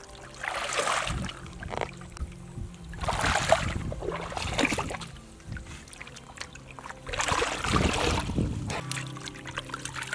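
Water splashing and sloshing in three surges about three seconds apart, over faint steady background music.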